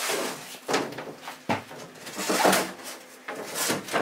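A run of irregular knocks and scraping noises, several in a row.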